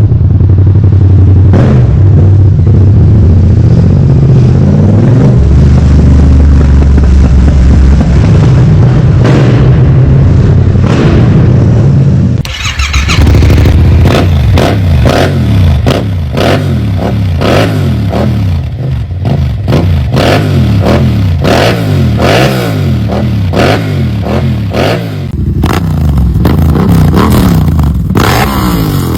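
Yamaha MT-07's parallel-twin engine through an Akrapovic exhaust, idling steadily, then from about halfway through revved again and again, the pitch rising and falling with each blip of the throttle.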